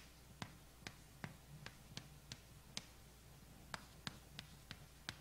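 Chalk writing on a chalkboard: a quick, irregular series of sharp ticks and taps as the chalk strikes and leaves the board, about three a second, with a short pause in the middle.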